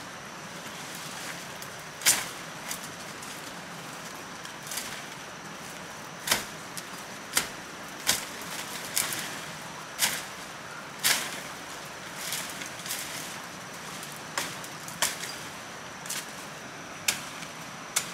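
Knife blade chopping at tree branches: sharp knocks spaced irregularly, about one a second.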